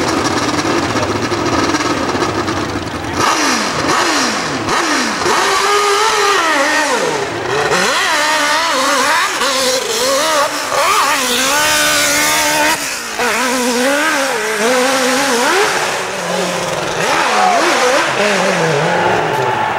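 Hillclimb racing motorcycle engine revving hard as the bike climbs the dirt hill. Its pitch rises and falls again and again as the throttle is opened and chopped.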